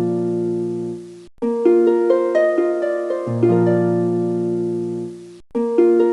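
Background music: a looping phrase of picked notes over held low notes, cutting out briefly about a second in and again near the end before the phrase restarts.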